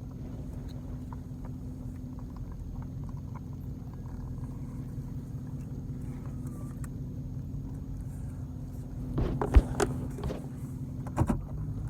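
Dodge Challenger R/T's V8 running, a steady low drone heard inside the cabin. A few sharp knocks and clicks come about nine to eleven seconds in.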